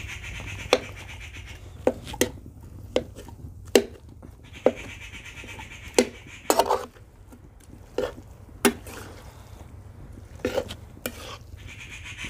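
Flat metal spatula clinking and scraping against a metal kadhai while stirring lumps of khoa as they melt in ghee. It strikes about a dozen times at uneven intervals, roughly once a second, with a short cluster of scrapes around the middle.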